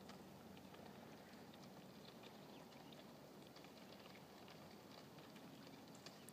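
Faint crackling of floating river ice: scattered small ticks and pops, irregular and close together, over a low steady hiss.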